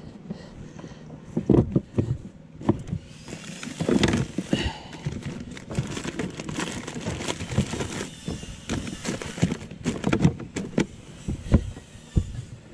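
Plastic outdoor trash bins being handled and moved: irregular clunks and knocks over a low rumble, sharpest about a second and a half in, around four seconds, and twice near the end.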